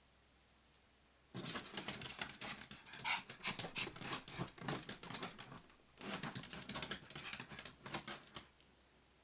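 A dog panting rapidly in two bouts, starting about a second and a half in, with a short break around six seconds.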